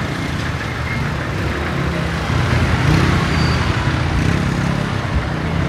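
Street traffic: motorcycle and tricycle engines running and passing, with a steady low engine hum under the road noise.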